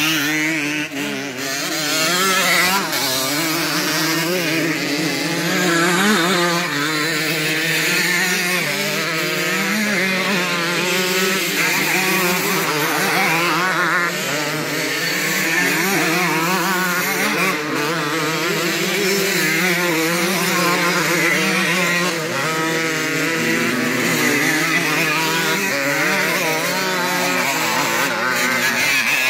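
Several classic motocross dirt bikes racing, their engines revving up and down as the riders accelerate and shift. Overlapping engine notes keep rising and falling in pitch.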